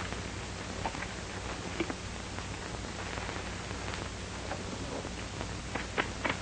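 Steady hiss and low hum of an old 1940s film soundtrack, with a few faint scattered clicks and knocks, more of them near the end.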